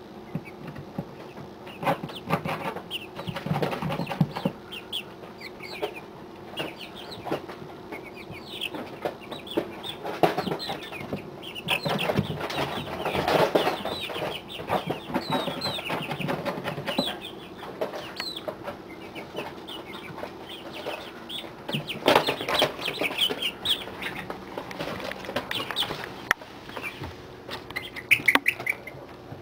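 A brooder full of 40-day-old chicks peeping and chirping without a break. At a few points there are louder stretches of calling and scuffling, with wings flapping.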